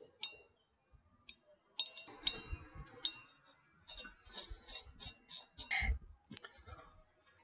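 Small metal parts clinking and ticking as a washer and castle nut are handled and threaded onto an ATV's rear axle stub, in scattered light clinks with a duller knock near the end.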